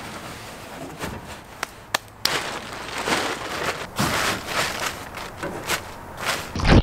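Blue plastic tarp crinkling and rustling in irregular bursts as it is spread and pressed into a boat's hull, after a couple of sharp knocks.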